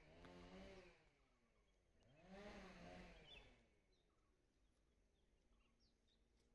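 A flying insect buzzing close past the microphone twice, its hum bending up and down in pitch, the second pass a little after two seconds in. After that come faint scattered bird chirps.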